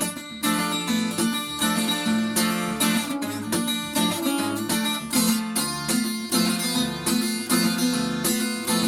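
Acoustic guitar strummed in a steady rhythm, playing the instrumental introduction of a song.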